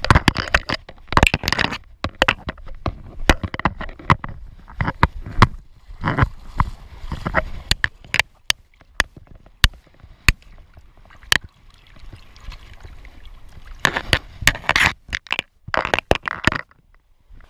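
Metal fishing forceps knocking against a GoPro's plastic housing, many sharp irregular clicks. Water splashing and sloshing in bursts: a loud one about a second in, another around six seconds and a longer one near the end.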